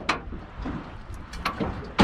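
Anchor chain clinking and the anchor knocking against the aluminium bow of a small boat as it is hauled aboard. There are a few sharp metal knocks, the loudest at the very end, over low wind rumble on the microphone.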